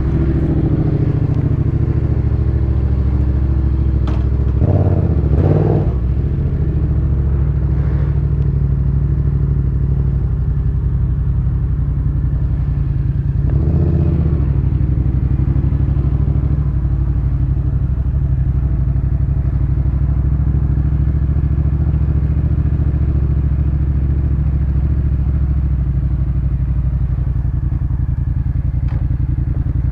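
Yamaha MT-07's 689 cc parallel-twin engine idling steadily through a Jeskap K4 full aftermarket exhaust, just after starting, with two brief light blips of the throttle about five and fourteen seconds in.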